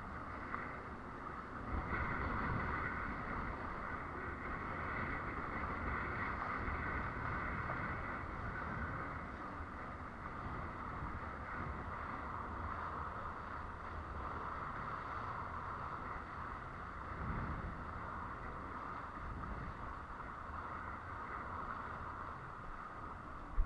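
Steady rush of water and wind as a windsurf board sails across the water, with wind buffeting the microphone.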